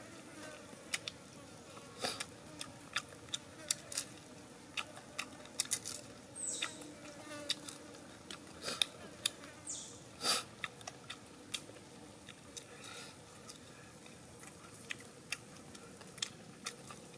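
Close-up mouth sounds of eating with the fingers: irregular lip smacks, sucking and chewing on cooked eel, with a faint insect drone behind. Two brief high falling squeaks come about six and ten seconds in.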